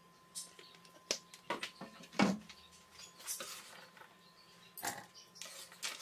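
Scattered clicks and knocks of kitchen handling around a stainless steel pot, the loudest about two seconds in, then diced potato, carrot and onion tipped into the pot with its little oil, a short scratchy rattle near the end.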